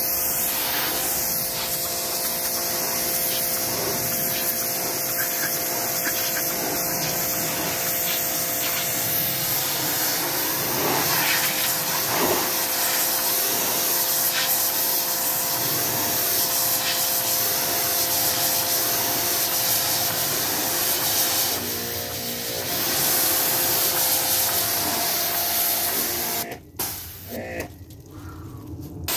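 Pressure washer spraying water against a boat's hull: a steady hiss, cutting out twice near the end.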